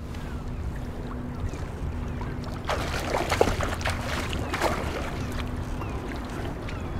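Water lapping around a kayak with a steady low rumble of wind. From about three seconds in, a hooked steelhead thrashes and splashes at the surface in a quick run of sharp splashes.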